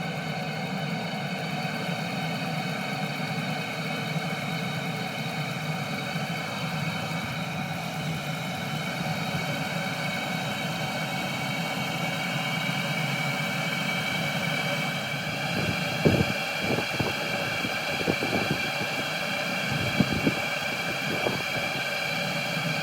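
Chinese 12 V diesel air heater running with its burner lit and turned up: a steady hum and whine from its fans and combustion. A few short knocks come in the last several seconds.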